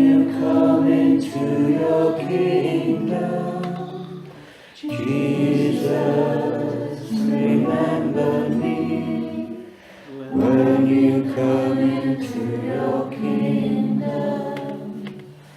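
A group of voices singing together, choir-style, in three phrases of about five seconds each, every phrase starting strong and fading away.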